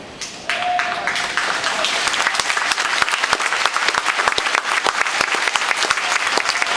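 Large audience applauding: dense, steady clapping from many hands that starts about half a second in.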